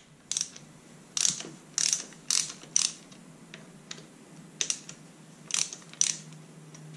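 Socket ratchet with a 5 mm Allen bit clicking in about eight short bursts, with a pause midway, as it undoes the Allen bolts of a motorcycle's front brake master cylinder clamp.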